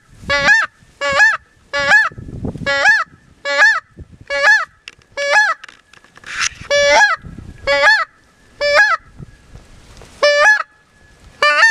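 A hand-held goose call blown in a series of about a dozen honks, a little under one a second. Each honk cracks from a low note up to a higher one, imitating goose honking to lure geese in.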